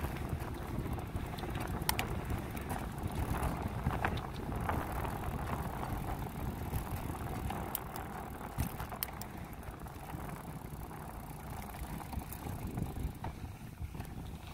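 Riding a bicycle on pavement: wind rumbling on the camera microphone over tyre and road noise, with scattered sharp clicks and rattles. It eases a little past the middle.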